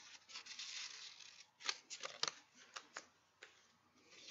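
Sticker sheets and paper being handled and shuffled by hand: a rustle of paper, then a few sharp snaps and clicks as sheets are picked up and set down.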